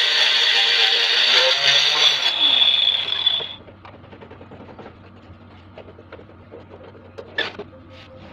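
Angle grinder running with a steady high whine, switched off about two and a half seconds in and winding down to a stop about a second later. After that come light clicks and knocks, with one brief louder sound near the end.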